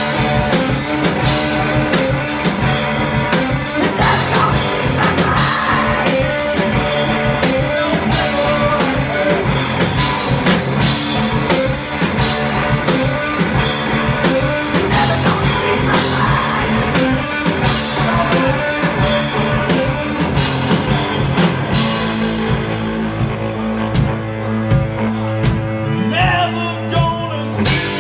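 Live rock band playing: electric guitars, bass and drum kit, with a singer on microphone. About three-quarters of the way through, the busy cymbal-bright top thins out into a sparser passage carried by the bass and guitars.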